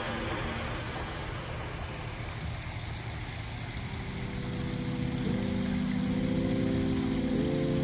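A steady rushing outdoor noise, then background music of sustained chords coming in about halfway through and changing chord twice.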